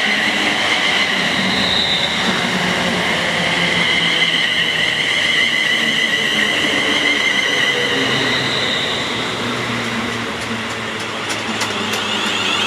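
London Northwestern Railway Class 350 Desiro electric multiple unit pulling into the platform, a steady rumble with a wavering high-pitched whine held throughout.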